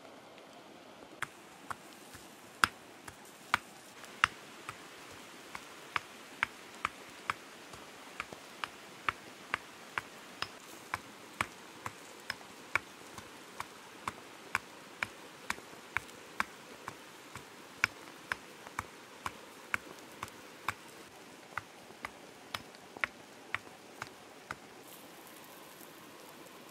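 Wood campfire crackling and popping under roasting catfish: sharp, irregular pops about twice a second over a faint steady hiss, the pops dying away near the end.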